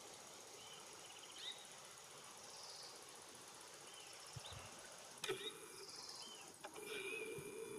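Faint outdoor background with scattered short, high chirps. A sharp click comes about five seconds in, and a steady hum sets in near the end.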